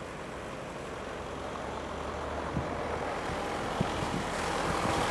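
City road traffic, a heavy vehicle running and growing steadily louder as it approaches, with a couple of short knocks.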